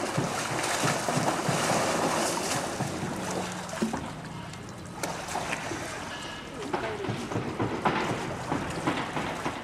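Pool water splashing and sloshing as polar bears wrestle and swim, busiest in the first few seconds, easing off in the middle, then a run of short splashes near the end.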